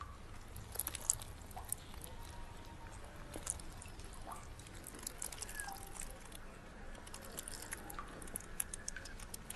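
Faint quiet ambience with scattered light clicks and rustles and a few brief, faint chirps.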